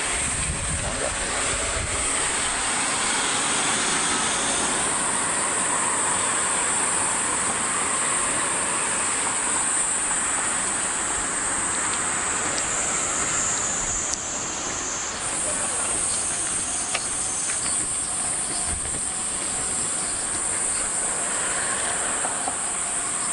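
A steady chorus of cicadas buzzing in the trees, a continuous high shrill that shifts slightly in strength a few times.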